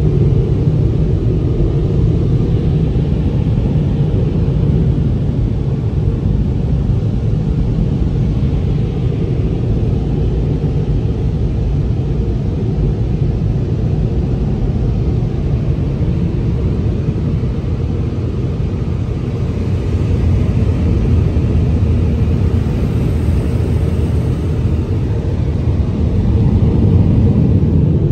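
Tunnel car wash dryer blowers running, a loud steady roar of rushing air heard from inside the car.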